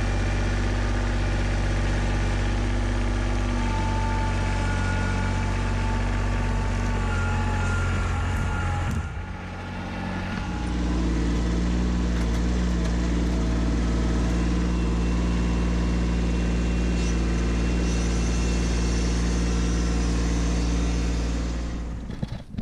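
Kubota B2601 compact tractor's three-cylinder diesel engine running steadily while its grapple digs out stumps and rocks, with a thin whine over it for a few seconds about four seconds in. The engine sound drops briefly about nine seconds in, comes back stronger, and cuts off suddenly near the end.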